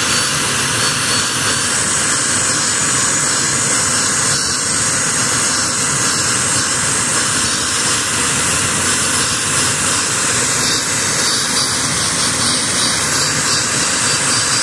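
Homemade turbojet built from a turbocharger with a welded steel combustion chamber, running steadily: a loud, even rushing noise with a thin high whine held at one pitch.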